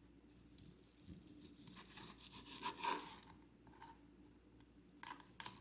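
Faint scraping and rubbing as a grilled chicken breast is cut up into small pieces, with a few sharper clicks near the end.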